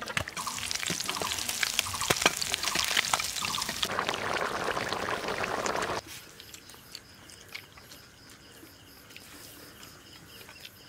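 Water splashing and pouring, full of small drips and clicks, cutting off suddenly about six seconds in to a much quieter stretch of faint scattered drips.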